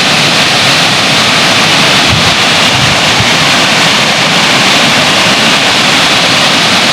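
Upper Ebor Falls on the Guy Fawkes River: a loud, steady rush of falling water.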